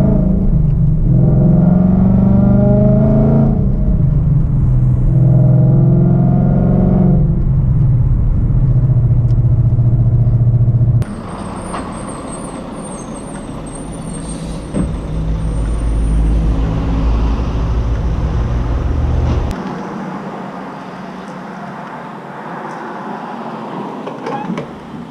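Ford Mustang GT's V8 engine accelerating hard, its pitch climbing and falling back several times as it goes up through the gears. About eleven seconds in, the sound drops abruptly to a much quieter low engine rumble, which stops about two-thirds of the way through.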